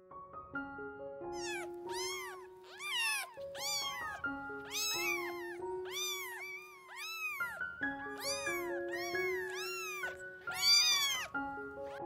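Domestic cat meowing over and over, a long series of meows that each rise and fall in pitch; the loudest comes near the end. Background music of slow held notes plays underneath.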